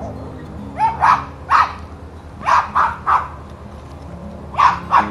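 A puppy barking in short, high yaps, about eight in three quick bunches: three about a second in, three near the middle and two near the end.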